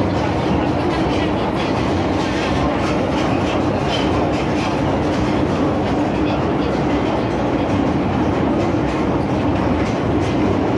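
MTR M-Train heard from on board, running steadily between stations: an even rumble of wheels on rail with a steady hum and faint clicks of the wheels over the track.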